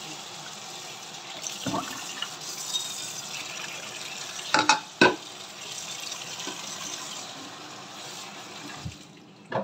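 Kitchen tap running into a stainless steel sink as a whole fish is rinsed and rubbed under the stream, with two sharp knocks about halfway through. The water stops near the end.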